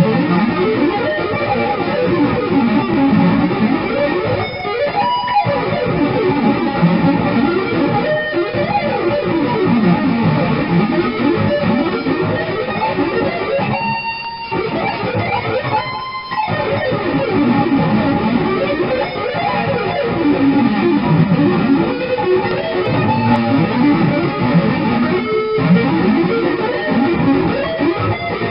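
Jackson JS32Q Dinky electric guitar played in fast diminished runs, the notes sweeping up and down in pitch, broken by a few short pauses between phrases.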